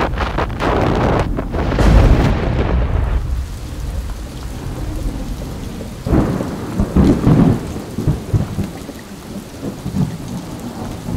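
Thunderstorm: wind and rain rush loudly over the microphone for the first few seconds. About six seconds in, a low rolling rumble of thunder swells and fades over a couple of seconds, and steady rain continues beneath it.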